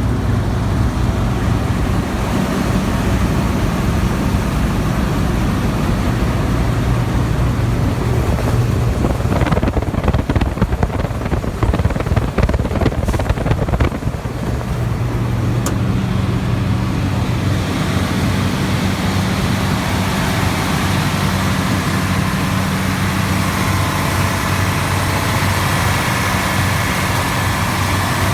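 New Holland TX68 combine harvester running, its Iveco diesel engine giving a steady low drone. For a few seconds in the middle the sound turns rough and rattling, and in the latter part a higher whine joins the drone.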